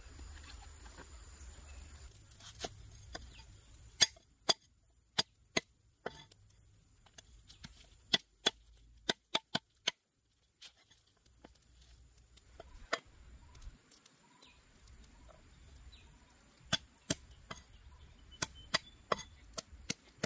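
A blade chopping on wood: sharp single strikes in short runs of three to six, about two a second, with pauses between the runs.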